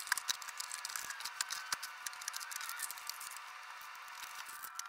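Small cardboard parts boxes being lifted out of a shipping carton and handled: scattered light clicks, taps and rustles of cardboard.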